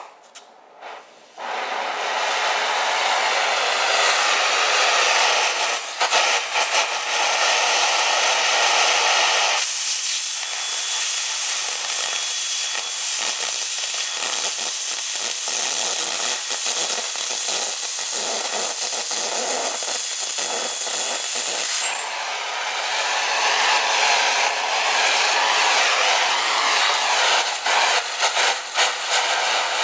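Oxy-fuel cutting torch hissing on its flame, then about ten seconds in the cutting oxygen jet comes on with a sudden louder, higher rushing hiss as it blows through steel plate, throwing sparks; the hiss shifts again about two-thirds of the way through as the cut goes on.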